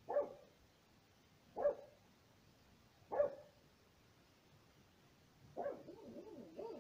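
A dog barking three short times, about a second and a half apart, with a few weaker sounds near the end.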